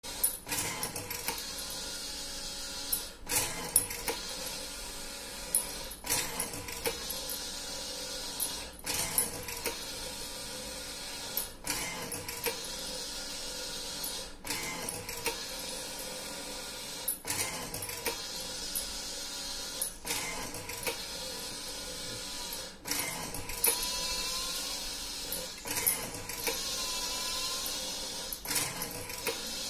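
Cotton puja-batti wick-making machine running: a steady electric motor hum with a pair of sharp clicks about every three seconds as the spindles cycle through each batch of wicks.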